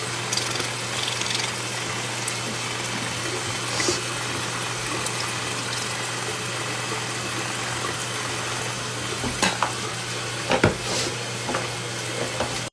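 A steady hiss over a low hum, with a few short knocks and rustles about nine and ten and a half seconds in as the phone is handled.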